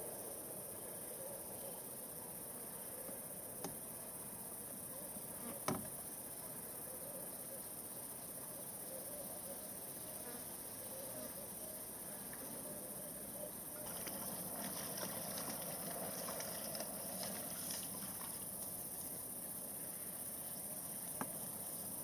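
Steady high-pitched shrilling of insects, with a few sharp clicks, the loudest about six seconds in. From about fourteen seconds the sound grows a little louder, with scattered ticks and rustles.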